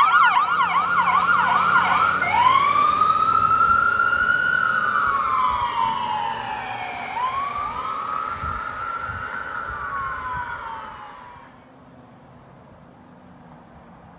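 Jackson Fire Department Ambulance 1250's siren sounding on an emergency response. It runs a fast yelp, switches about two seconds in to a slow rising and falling wail for two cycles, and fades away as the ambulance drives off.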